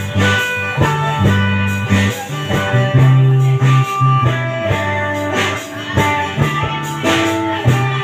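Live guitar band playing an instrumental passage: a strummed acoustic guitar and electric guitar over sustained low bass notes.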